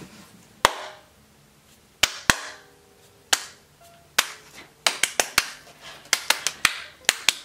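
A person clapping hands: a few single claps spaced out at first, then coming quicker and quicker in the second half. Faint music underneath.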